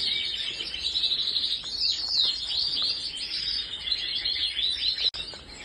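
Canaries chirping: a dense, continuous run of high, quick chirps and short sweeping notes.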